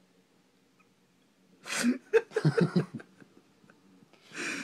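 A person laughing: a sharp breath out about a second and a half in, then a quick run of short chuckles, with another breathy exhale near the end.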